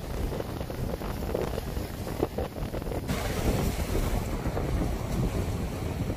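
Wind blowing across the microphone over the wash of sea waves.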